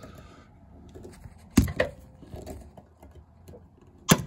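Hand pop-rivet gun setting rivets in a car door's inner panel: two sharp snaps about two and a half seconds apart as the rivet mandrels break off, with handling and squeezing noise between.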